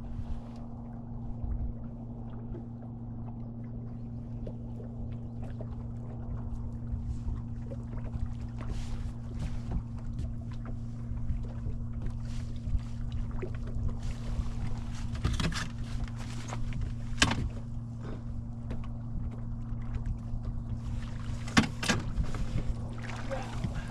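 Boat motor running steadily at trolling speed, a low even hum. Scattered clicks and knocks come in the second half.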